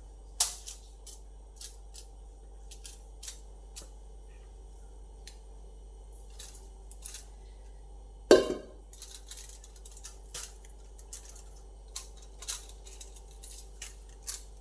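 Light clicks and scrapes of a spatula against a steel bowl and a foil-lined tin as cream is poured out and spread, with one loud metallic clank a little past halfway.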